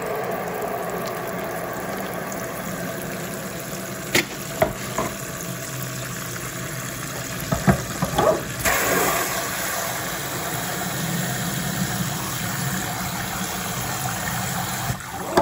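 Kitchen faucet's pull-down sprayer running into a plastic bowl in a stainless steel sink, filling it with water. There are a few light knocks midway, and the spray's hiss turns brighter about eight and a half seconds in.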